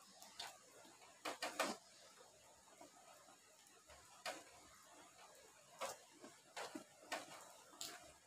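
Metal spoon clicking and scraping against a plate as someone eats, about ten short sharp clinks at irregular intervals, with a cluster of three around a second and a half in, over quiet room tone.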